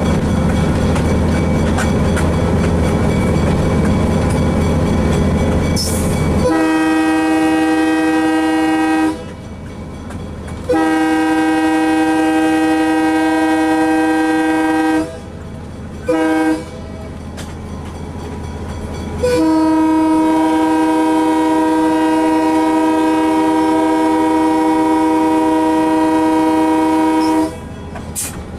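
GE 70-ton diesel locomotive's air horn sounding the grade-crossing signal: long, long, short, long, with the last blast held longest. Before the first blast, the locomotive's diesel engine and wheels on the rails are heard from the cab platform.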